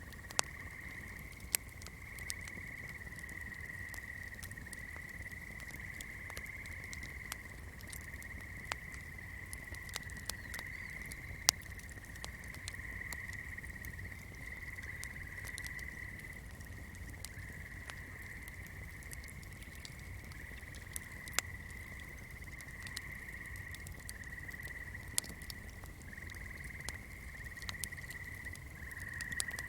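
Swamp ambience: a continuous high chorus of frogs at one steady pitch, over a low rumble, with sharp, irregular crackles and pops from a fire every second or two.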